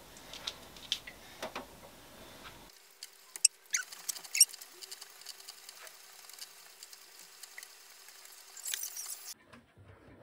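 Stationary exercise bike being pedalled: a faint steady hum with scattered small squeaks and clicks, and a brief hiss near the end.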